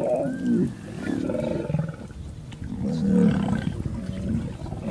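Young lions growling in repeated bursts as they wrestle and bite at one another.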